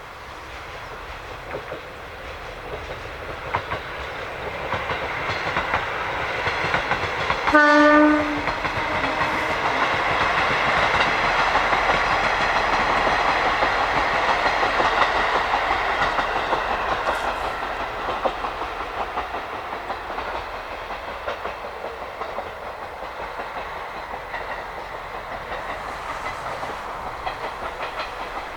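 Diesel railcar train of KiHa 40 and KiHa 48 cars approaching and passing, its wheels clattering over rail joints. It sounds one short horn blast about eight seconds in as it draws near, then grows loudest as it goes by and slowly fades away.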